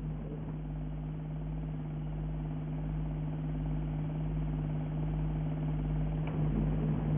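A steady, unchanging low mechanical hum with one strong held tone and a rumble beneath it, and a faint click a little after six seconds in.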